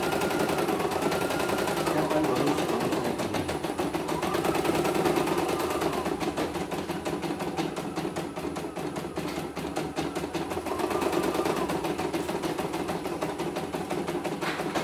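CNY E900 computerized embroidery machine stitching at speed: a fast, even needle clatter, with a whine that rises and falls three times.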